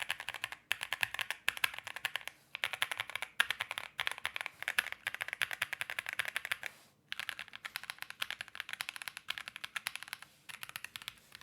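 Fast typing on an Akko Alice Pro Plus mechanical keyboard with Akko CS Crystal switches, tape-modded with a silicone case pad and fitted with doubleshot PBT ASA-profile keycaps. Keystrokes come in dense runs of clacks, broken by a few brief pauses.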